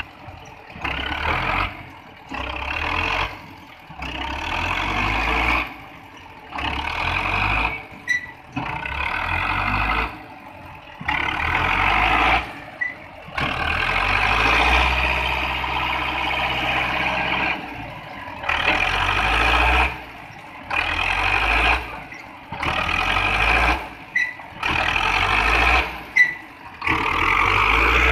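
Tractor diesel engine running hard under load as it pulls a trolley. It comes in bursts of one to three seconds, each cut off abruptly.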